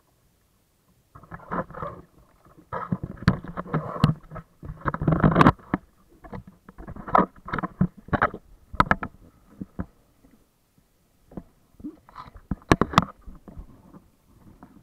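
Irregular splashing and sharp knocks on a small sailing kayak under way, loudest in the first half, with a short lull and a few more knocks near the end.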